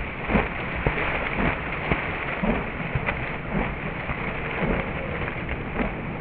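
Ducks calling in short, irregular calls at a lakeshore, over a steady hiss of wind and lapping water.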